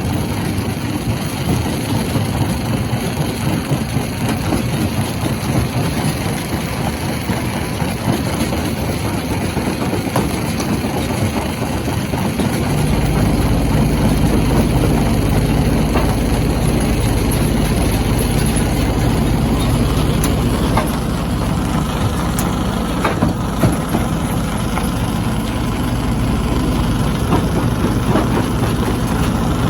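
Stone crushing machinery running steadily with a deep hum that gets heavier about a third of the way in. A few sharp knocks of rock come near the end.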